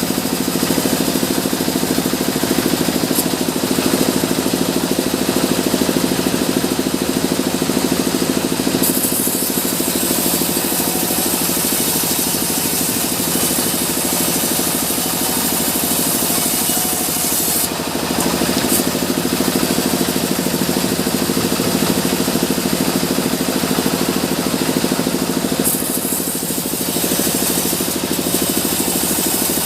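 Sawmill saw machinery running steadily: a constant motor drone with a hissing high edge. The hiss grows stronger about a third of the way in and dips briefly twice, a little past halfway and near the end.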